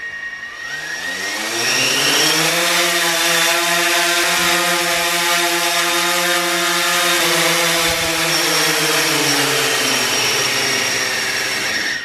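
DJI Phantom 4 Pro quadcopter's motors and propellers spinning up with a rising whine, running at a steady pitch for about eight seconds, then winding down and stopping near the end.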